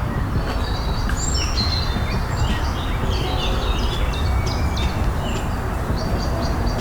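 Several small birds chirping and singing in short, high notes over a steady low rumble.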